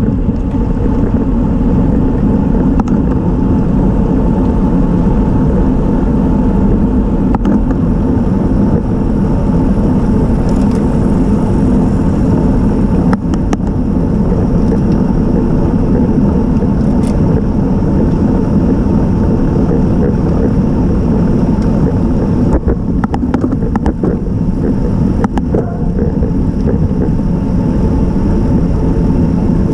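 Steady rumble of wind and tyre noise on a camera riding on a road bicycle, with a few faint clicks in the second half.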